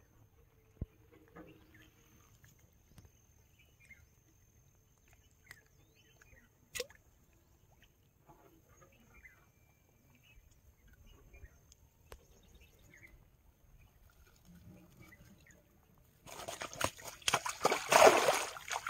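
Mesh fishing net plunged and worked in shallow river water at the bank, splashing loudly for the last two or three seconds. Before that it is quiet apart from a few faint clicks and a faint steady high whine.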